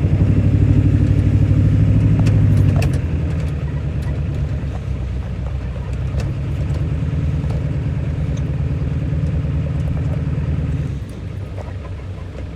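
1997 Ford Power Stroke 7.3-litre turbo-diesel V8 pulling hard under heavy throttle, loudest for the first three seconds, then running more steadily and easing off again about eleven seconds in. It sounds a little bit better but still not perfect: the engine is not yet running right.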